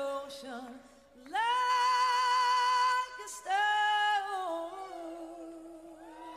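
A female lead vocal from the song being played, holding long notes with vibrato over little audible backing: a high held note about a second in, a shorter one after it, then a lower note that slides down and is held until near the end.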